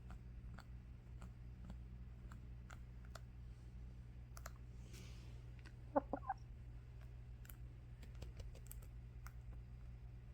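Pet hen making faint, irregular beak-smacking clicks, with a quick run of three or four soft clucks about six seconds in.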